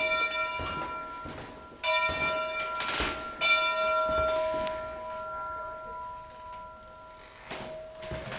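A large metal bell struck three times, a little under two seconds apart, each strike ringing on and fading slowly, the last ringing for several seconds.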